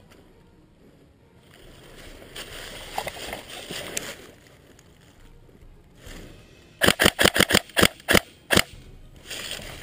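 Tokyo Marui M4 SOPMOD airsoft electric gun (AEG) firing about nine sharp shots in quick succession over under two seconds, about seven seconds in. Before that, a stretch of rustling in dry leaves.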